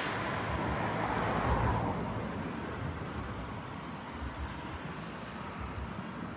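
Distant passenger train running past, a steady rushing noise that fades after about two seconds as it draws away, with wind buffeting the microphone.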